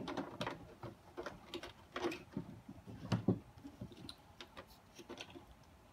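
Hard plastic parts of an Electrolux Epic 6500 canister vacuum's body and motor assembly clicking and knocking as they are handled during reassembly. The clicks are scattered and irregular, with a duller, fuller knock about three seconds in.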